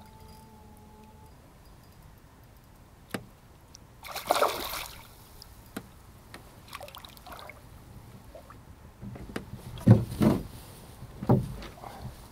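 Hooked trout splashing at the surface beside a small boat, with a burst of splashing about four seconds in. Near the end come water sloshing and several heavy knocks as the landing net is put into the water to land the fish.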